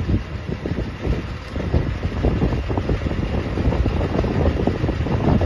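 Fire truck engine rumbling as the truck drives up and past, with wind buffeting the microphone.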